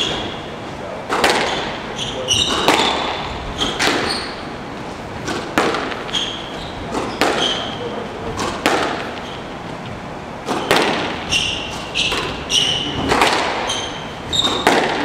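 Squash rally: the ball smacking off racquets and the front wall in a steady back-and-forth, each hit echoing in the court, with short high squeaks of court shoes on the wooden floor between hits.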